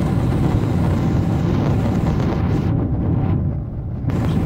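Cabin noise in a Boeing 777-300ER climbing after takeoff: the GE90 engines' steady low rumble with airflow hiss, heard from a window seat. The hiss briefly dulls about three seconds in.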